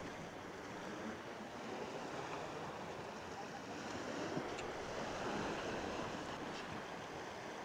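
Sea washing against a rock ledge: a soft, steady wash of water that swells slightly around the middle.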